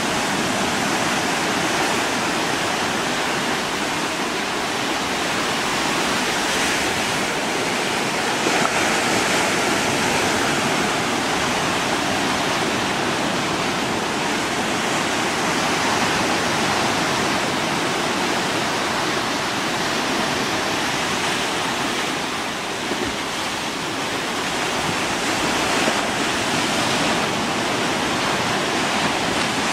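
Steady rushing hiss of water from small waves washing along the shore, swelling slightly now and then.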